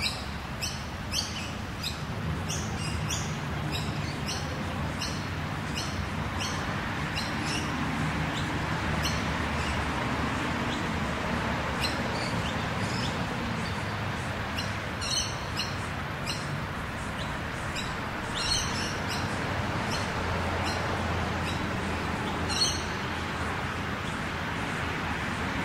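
Rural outdoor ambience: small birds chirp in quick, repeated short notes, thinning out after about seven seconds, with a few louder calls later on. Beneath them runs a steady low rumble of distant road traffic.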